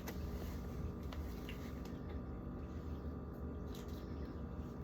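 Quiet, steady low hum with a few faint, soft clicks.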